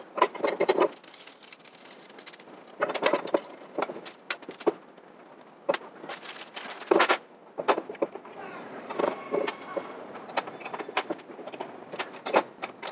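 Small metal and plastic parts of a CNC 3018 mini mill kit being handled and fitted together by hand: irregular clicks, taps and rattles, with a few short flurries of handling noise.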